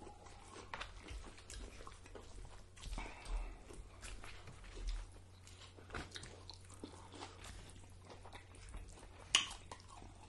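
Close-miked chewing and mouth smacking of people eating burrito bowls of rice, meat and lettuce, with small fork clicks against the bowls; one sharper click stands out about nine seconds in.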